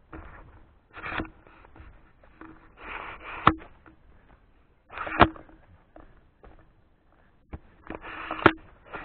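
Slow footsteps on a dry forest path: crunches of leaf litter and grit about every one to two seconds, each with a sharp click as the foot lands.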